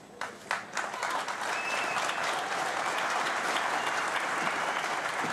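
Large crowd applauding: a few scattered claps at first, swelling within about a second into dense, steady applause.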